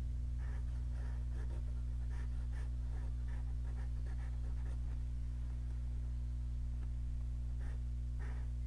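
Pencil scratching on paper in short, irregular strokes, over a steady low hum.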